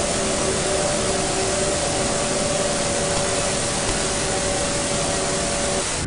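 Loud, steady hiss of white-noise static, as from a TV channel that has gone off the air, with a few faint steady tones beneath it; it cuts off suddenly at the end.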